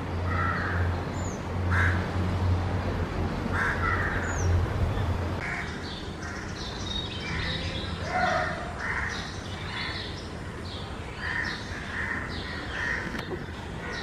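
Crows cawing, a few harsh caws in the first five seconds over a steady low hum; after a cut about five and a half seconds in, more cawing mixed with quick chirps of small birds.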